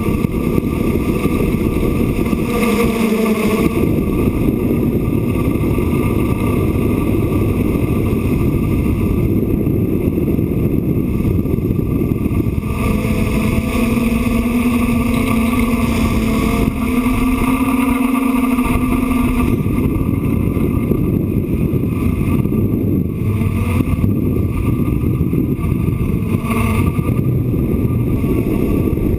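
Six electric motors and propellers of a DJI F550 hexacopter running steadily, heard through the camera hard-mounted on its frame, with wind buffeting the microphone. The whine comes through more strongly for a few seconds in the middle.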